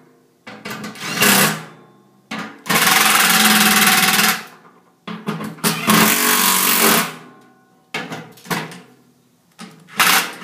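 Cordless drill with a socket running in several short bursts of a second or two, driving down the nuts on a blower motor's mounting-leg bolts. Metal clinks from the wrench on the bolts come between the runs.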